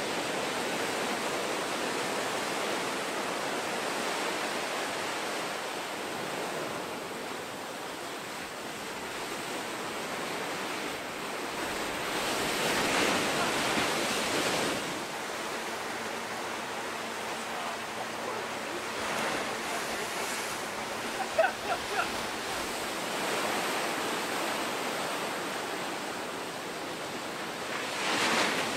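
Ocean surf rumbling and washing steadily, with a wave breaking loudest about halfway through. Three brief high-pitched chirps come about three-quarters of the way in.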